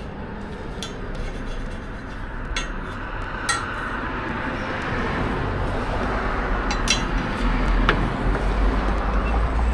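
A few sharp clinks of metal utensils and cookware over a steady hiss that slowly grows louder, with a low rumble in the last couple of seconds.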